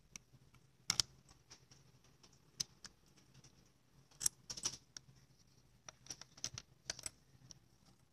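Key-reset emergency stop pushbutton being released with its key: a string of sharp plastic clicks as the key goes into the red mushroom head and turns, and the latched head springs back up to reset the switch, with a light jingle of the key ring.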